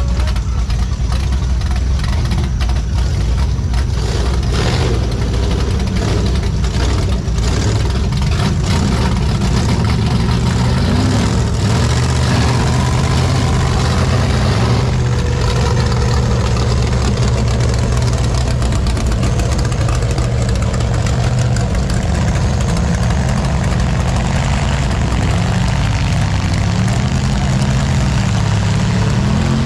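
A vehicle engine running, mostly steady, its pitch rising and falling a few times near the end.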